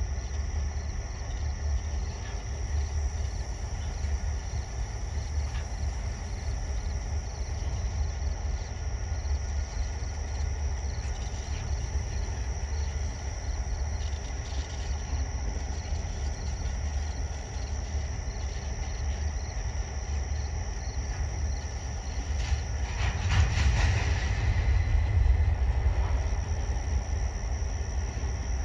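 CN freight train rolling past at a distance: a steady low rumble of the cars on the rails. For a few seconds near the end it grows louder with metallic rattling and a thin high squeal.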